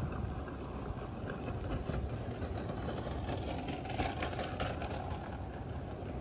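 Rainy city street ambience with a vehicle engine running nearby under a steady low rumble, and a cluster of light taps and clicks about halfway through.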